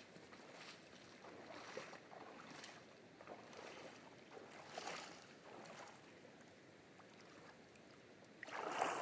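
Faint sloshing footsteps of a hiker wading through shallow water and soggy ground, irregular swishes and splashes, with a louder rush of noise near the end.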